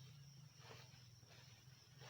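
Near silence: a faint steady low hum with a few soft rustles.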